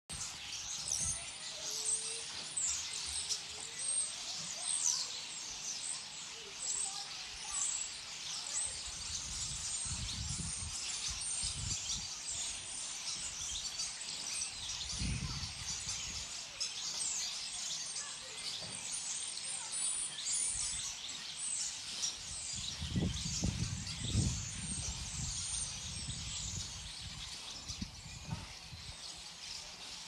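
A large flock of small birds chirping continuously, many short calls overlapping at once. Low rumbles come and go a few times, about a third of the way in and again toward the end.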